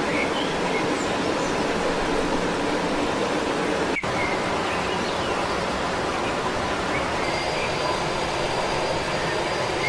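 A steady, even rushing noise, with a few faint high chirps scattered through it and a thin, steady high whine coming in at about seven seconds.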